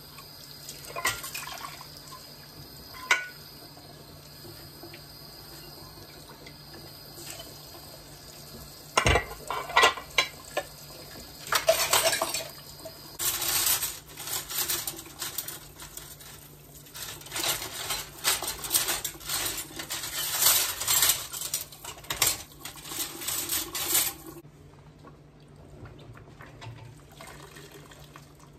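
Dishwashing at a kitchen sink: the tap runs, and dishes and cutlery clink and knock against the sink, with a few sharp knocks about nine to ten seconds in. A long stretch of busy scrubbing and splashing follows, then it goes quieter near the end.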